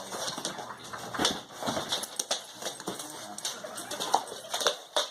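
Dog's claws clicking irregularly on a hard floor as it moves about.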